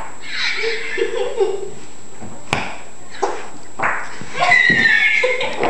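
Imitation fart noises made with the body, squeezing sweaty skin together: a longer noisy one at the start, a few short sharp ones, and a longer squeaky, wavering one near the end.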